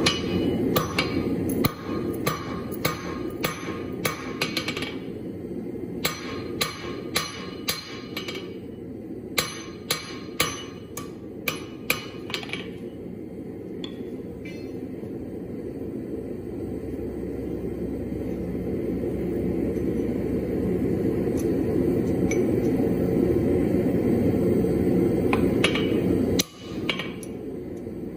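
Blacksmith's hammer striking hot 5/8-inch round steel bar on an anvil: runs of ringing blows about two a second, then a pause of more than ten seconds, then a few more blows near the end. A steady low rumble runs underneath and grows louder during the pause.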